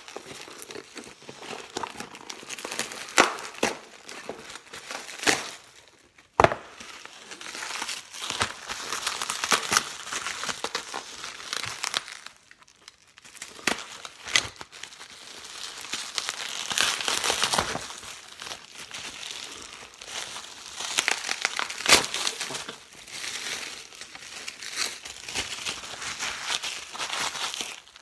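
Packaging being handled: a taped, paper-wrapped parcel is torn open, then plastic bubble wrap is crinkled and pulled apart by hand. The crinkling is irregular and continuous, with sharp loud rips now and then and two brief pauses.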